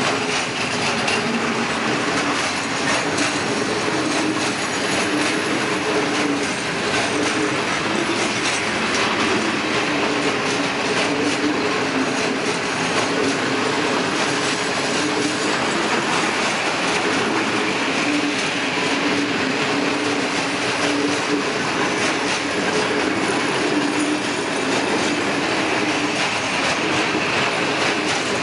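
Freight train of open-top wagons rolling past at close range: a steady rumble of steel wheels on rail, with many clicks as the wheels cross rail joints and a wavering whine from the wheels that comes and goes.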